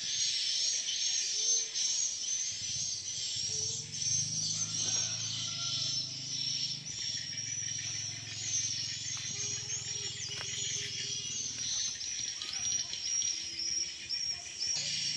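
Dense, high-pitched chorus of chirping wild birds and insects in tropical forest, with many short calls overlapping without a break. Low steady tones run underneath from a few seconds in until near the end.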